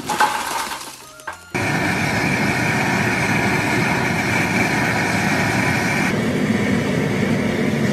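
Handheld gas blowtorch lighting charcoal briquettes, starting suddenly about a second and a half in and burning with a steady rushing hiss, its pitch shifting slightly about six seconds in.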